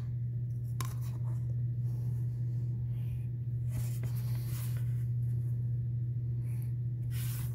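White colored pencil drawing lines on construction paper along a wooden ruler: a few short strokes and a click about a second in, over a steady low hum.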